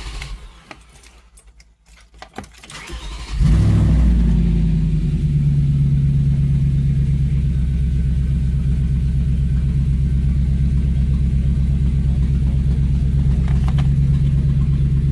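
2006 Audi S4's 4.2-litre V8 being started with the key: a few clicks, a short crank, and it catches about three seconds in, then settles into a steady idle.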